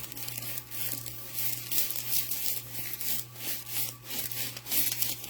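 Crinkling and rubbing of a diamond-painting canvas and its plastic cover film being handled, a run of irregular rustles over a steady low hum.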